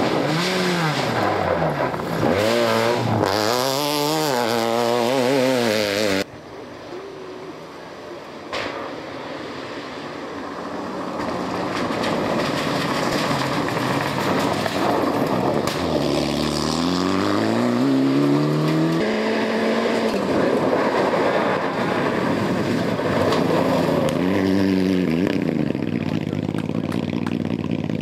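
Rally cars on a gravel stage: first a Ford Focus rally car's engine revving up and dropping back again and again through gear changes as it comes on. After a sudden cut, a Mitsubishi Lancer Evolution rally car approaches, its engine building and revving through further gear changes as it nears.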